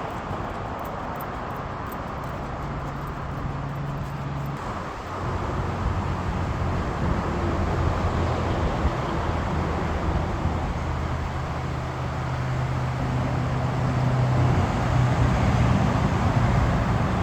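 A steady engine hum with road noise, like a motor vehicle running nearby; the hum changes pitch about five seconds in and grows a little louder toward the end.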